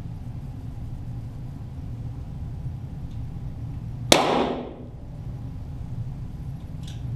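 A single .22 rimfire shot from a Walther GSP target pistol, heard from the target end: one sharp crack about four seconds in with a short echoing tail, over a steady low hum.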